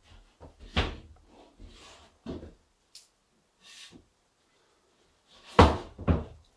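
A drywall sheet knocking and rubbing against the wooden wall framing as it is fitted into place: scattered knocks, then two sharp thuds about half a second apart near the end.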